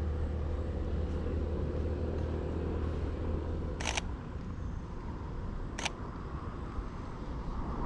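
Two camera shutter clicks about two seconds apart near the middle, over steady background noise. A strong low hum fades out after about three seconds.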